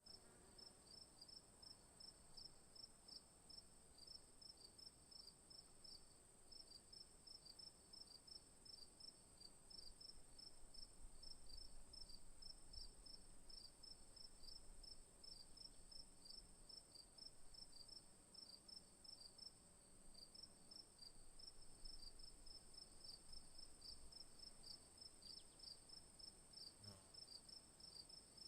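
Faint insect chorus, like crickets: a steady high trill with a quicker run of short chirps beneath it, about three or four a second, going on without a break.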